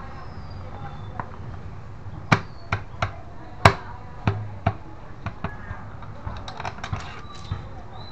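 A run of sharp knocks and clicks as hands fit parts onto a Yamaha scooter's CVT cover, plastic and metal striking each other. The loudest half-dozen come between about two and five seconds in, followed by lighter taps.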